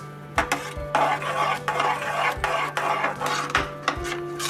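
A metal ladle stirring thick, wet rasam rice in a metal pot, scraping through the rice and knocking against the pot's side with several sharp clicks. Soft background music plays underneath.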